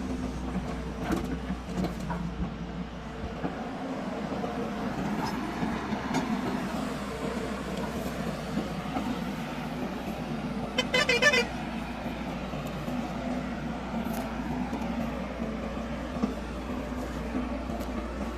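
Heavy diesel machinery, a tipper truck and a hydraulic excavator, running steadily. About eleven seconds in, a short vehicle horn sounds with a rapid pulsing.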